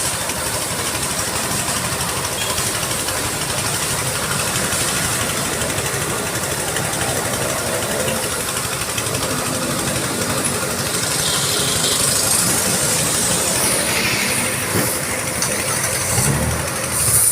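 Strong wind rushing past and buffeting the microphone: a loud, steady noise with a low rumble, a little stronger from about twelve seconds in.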